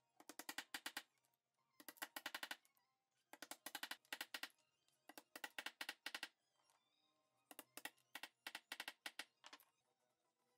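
A mallet tapping wooden dowel axles into hardwood toy wheels: about six bursts of rapid light taps, several to a burst, with faint background music between.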